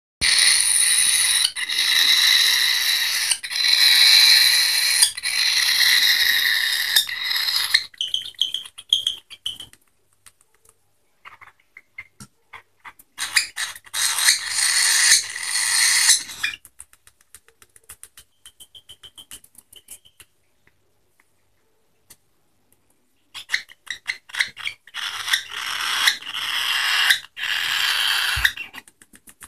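A hungry fledgling finch begging for food: three long runs of loud, harsh, rapid calls while it is spoon-fed. Between the runs come quieter stretches of small ticks.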